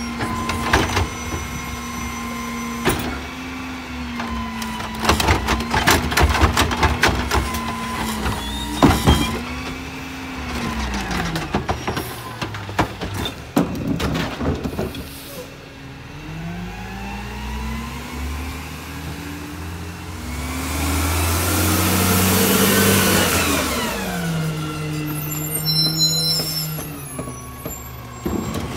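CNG McNeilus rear-loader garbage truck working a pickup: the engine runs steady under the hydraulics while carts bang and clatter against the hopper, then about halfway through the engine rises in pitch through several gears as the truck pulls ahead. A long air hiss follows, and the engine settles to a lower steady note near the end.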